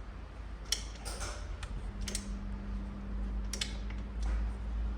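A handful of sharp, irregular metallic clicks from a hand tool working a tight, thread-locked bolt on a motorcycle's rear hugger.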